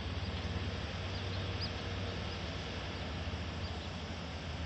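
Heavy diesel engine idling, a steady low hum, with a few faint short high chirps in the first couple of seconds.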